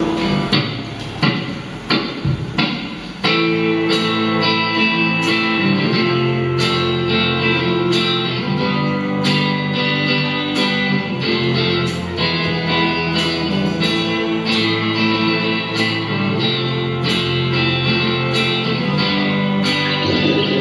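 Rock band playing the instrumental intro of a song: guitar chords with a few sparse hits for about three seconds, then the full band with guitars, bass and drums comes in together and plays on steadily.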